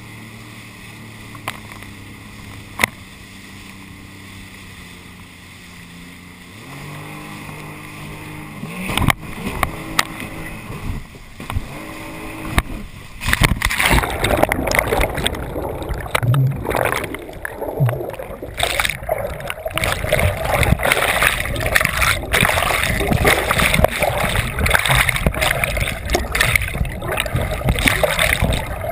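Jet-ski engine running at low revs with a steady hum, speeding up about seven seconds in. From about thirteen seconds in, loud churning water and splashing take over.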